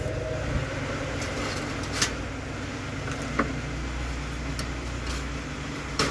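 Steady low background rumble with a few sharp clicks and knocks scattered through it, the loudest one near the end.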